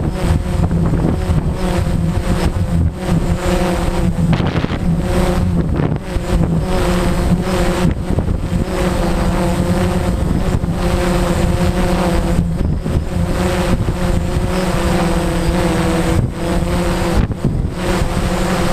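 Strong wind buffeting the microphone, over the steady, slightly wavering multi-tone hum of a DJI Phantom quadcopter's motors and propellers in flight.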